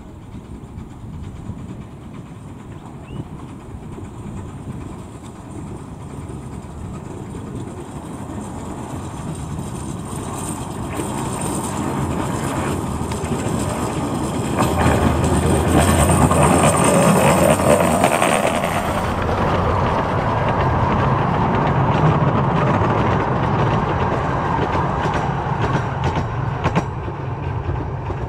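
Small narrow-gauge steam train running on the track, its wheels clattering over the rails as it comes closer, growing louder to a peak about halfway through and staying fairly loud afterwards.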